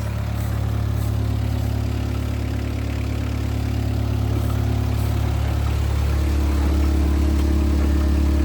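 A vehicle engine running steadily, growing a little louder, with its note changing and strengthening about six seconds in.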